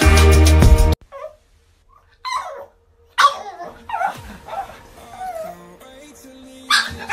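Upbeat intro music that cuts off about a second in, then a black pug whimpering and yipping in short high calls, some sliding down in pitch, with a louder yelp near the end.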